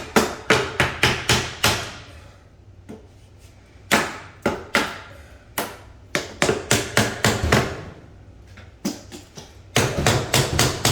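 Hammer striking a tight-fitting wooden frame piece to drive it into a doorway opening. The blows come quickly, about four or five a second, in three runs with short pauses between.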